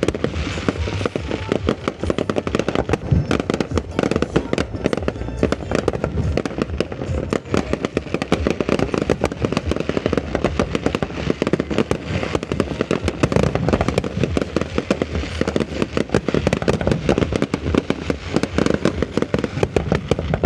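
Aerial fireworks display: a dense, unbroken barrage of shell bursts and crackling.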